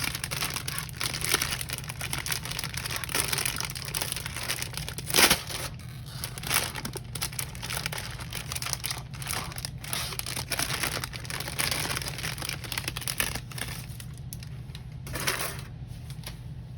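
Thin plastic polybag of model-kit runners crinkling as it is torn open and handled, with one sharper crackle about five seconds in.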